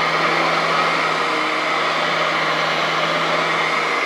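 Royal Metal 8200 all-metal upright vacuum cleaner running on carpet, its motor and large suction fan giving a steady, even rush of noise with a low hum under it.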